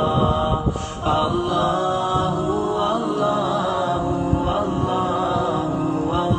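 Background music of a melodic vocal chant.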